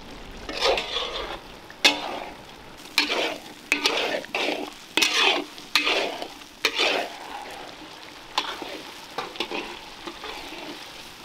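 Crushed peanuts being stirred into a thick, frying masala in a metal kadai: irregular scraping strokes against the pan over a steady sizzle. The strokes come fewer and fainter after about seven seconds.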